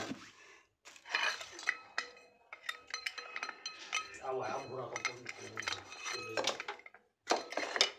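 Repeated clinks and knocks of an aluminium pressure cooker and metal utensils being handled, each with a brief metallic ring. A voice talks in the background around the middle.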